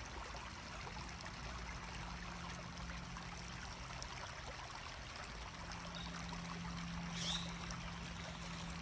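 Steady rush of flowing water, with a faint low hum that comes and goes and a short high chirp near the end.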